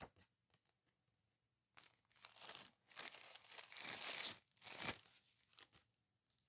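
Handling noises: a sharp click, then a few seconds of irregular rustling in the middle, with no clipper motor running.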